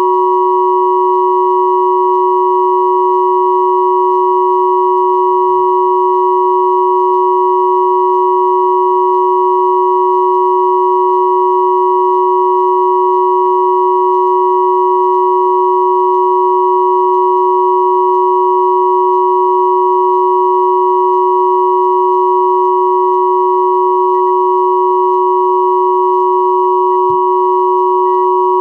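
Combined pure sine tones, sold as 369, 963 and 1111 Hz 'healing frequencies', held together as one steady unchanging hum with a lower and a higher pitch sounding at once.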